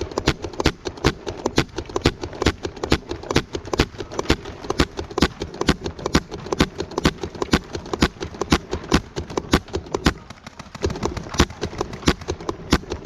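Paintball markers firing in a sustained exchange, a dense rattle of sharp pops several times a second with few gaps.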